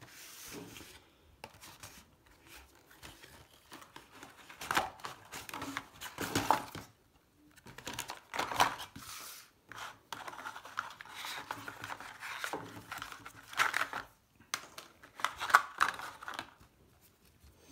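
Cardboard box and packaging inserts rustling, scraping and crinkling in irregular bursts as hands work a boxed bike pedal out of the packaging, with several louder scrapes along the way.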